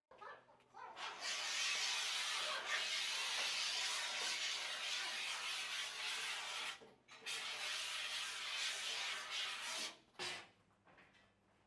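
Abrasive rubbing on wood in two long spells, the first about six seconds and the second about three.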